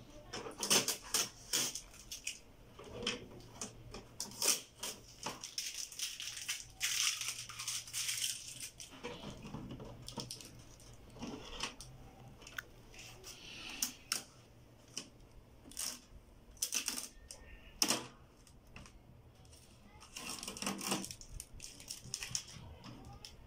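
Irregular plastic clicks, knocks and rustles of hands handling a new HP Smart Tank 515 inkjet printer, its covers and front tray being opened and blue packing tape pulled off.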